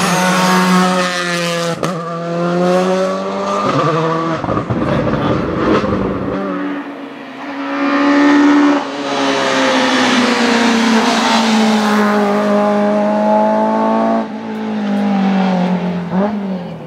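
Racing car engines at full throttle on a hillclimb, revving high and dropping back at each gear change as one car and then another climb the course.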